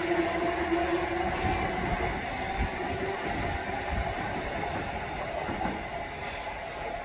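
Electric multiple unit train moving away along the track: steady whining tones from its traction equipment over the rumble and occasional knocks of wheels on rail, slowly fading as it draws off. The lowest whine stops about a second and a half in.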